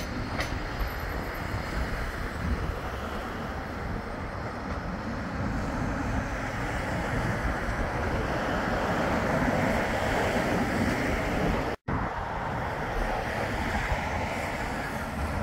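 Steady rush of wind on the microphone mixed with passing road traffic, swelling a little in the middle. The sound cuts out completely for a moment about twelve seconds in.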